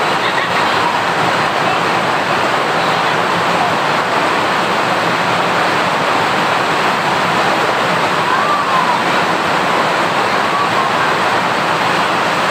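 A steady, loud rushing noise, with faint voices underneath.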